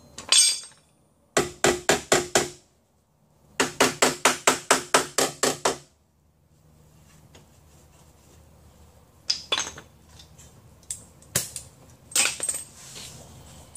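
Hand hammer striking the sheet steel of a car's center door pillar, in quick runs of ringing metallic blows about five a second. The blows then turn into fainter, scattered taps.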